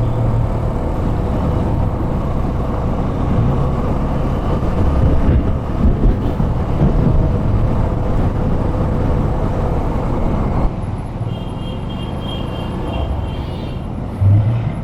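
Yamaha FZS25 motorcycle riding along a road: engine and wind rush on the camera's microphone, easing off about ten and a half seconds in as the bike slows. A faint high pulsing beep sounds near the end.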